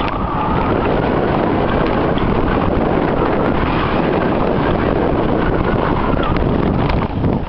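Wind buffeting the microphone over the rumble and rattle of a mountain bike riding a dirt trail, with scattered small clicks and knocks.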